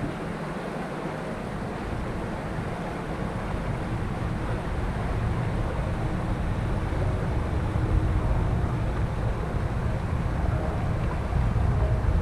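Wind buffeting the camera microphone by open water: a steady low rumble and rush that grows gradually louder.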